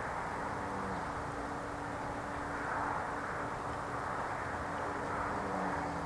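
Steady, loud idling-like hum with a faint constant tone over an even rushing drone, from an unidentified source that the recordist insists is not a generator.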